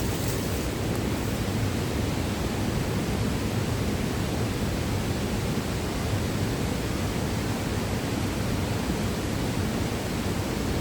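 Steady, even rush of a powerful waterfall's falling water.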